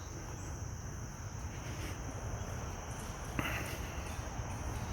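Crickets chirping in a steady high-pitched chorus over a low outdoor rumble, with one brief knock about three and a half seconds in.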